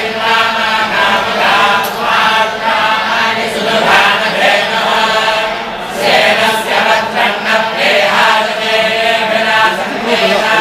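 A group of boys chanting Vedic verses in unison, their hands moving to mark the recitation, with a brief pause for breath about halfway through.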